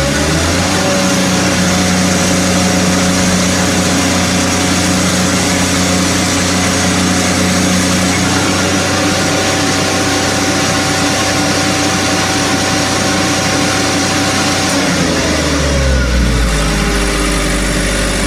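Airman PDW280 diesel welding generator's engine speeding up from idle right at the start, running steadily at higher speed under welding load, then dropping back toward idle about 15 seconds in. The crackle of the welding arc burning on the steel block runs through it.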